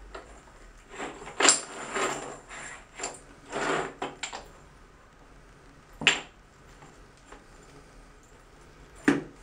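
Mosaic tile sheets clinking and knocking as they are handled and set into thinset mortar, with a few sharp clicks, brief scrapes, and quieter handling between them.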